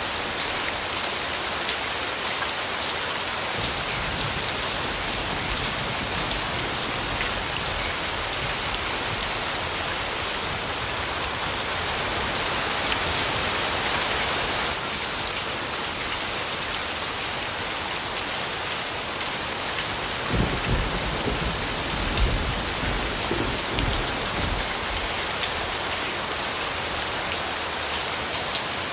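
Steady rain falling, an even rushing hiss, with a low rumble of thunder starting about twenty seconds in.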